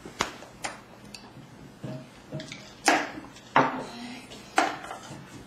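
Tableware clinking and knocking: about five sharp, separate strikes of cutlery and dishes, the loudest about three seconds in.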